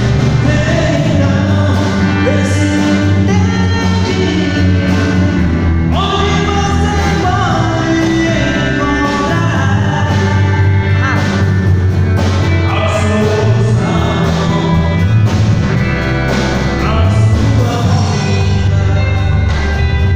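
A band playing a song, a sung melody over drums and bass.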